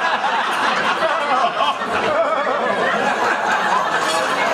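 Crowd of guests talking over one another in a large hall, with scattered chuckles and laughter.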